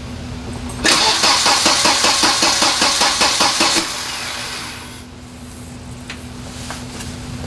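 1993 Volvo 940 Turbo's four-cylinder engine cranking on the starter for about three seconds, with even pulses about five times a second, and not catching. This is a no-start after a fuel pump and filter replacement, with the fuel lines and filter still drained of fuel.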